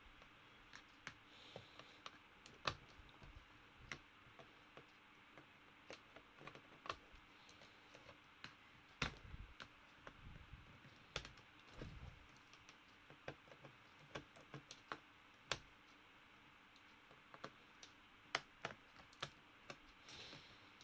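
Faint, irregular clicks and taps of small plastic and metal parts being handled, a few of them sharper than the rest.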